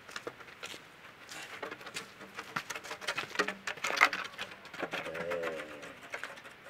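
Footsteps crunching on a stony dirt path, with a wooden walking stick knocking on the ground in irregular clicks. A bird calls briefly about five seconds in.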